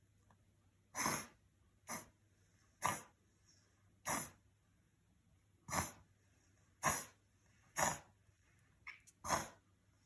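A dog reverse sneezing: a string of about nine short, harsh, noisy breaths pulled in through the nose, roughly one a second. It is a harmless spasm, not an emergency.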